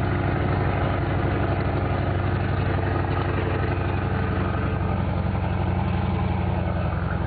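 Scania 580 V8 truck engine running steadily at cruising speed, heard from inside the cab.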